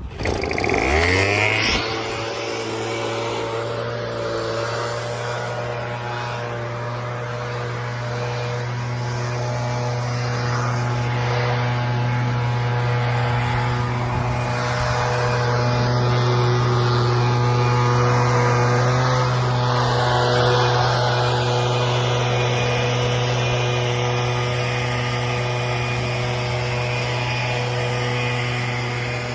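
Leaf blower starting up about a second in, quickly rising to speed, then running steadily at high speed as it blows loose debris off the stones.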